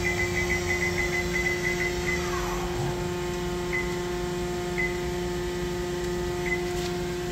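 DMG Mori NTX 1000 main spindle spinning at its 5,000 RPM maximum with a short bar in the chuck: a steady, quiet hum carrying a few fixed tones, with short high chirps over the first two seconds and now and then after.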